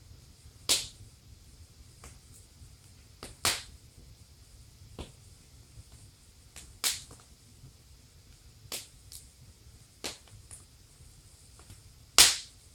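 Wood fire in a fireplace crackling, with about six sharp pops spaced a couple of seconds apart and fainter ticks between them; the loudest pop comes near the end.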